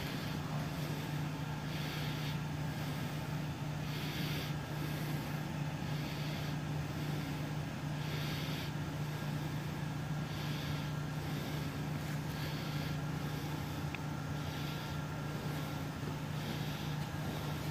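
Steady low hum of a building's ventilation system, with a soft hiss recurring about every two seconds.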